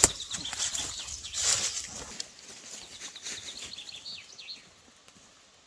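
A sharp click, then about two seconds of rustling and handling noise, followed by a few short, faint bird chirps.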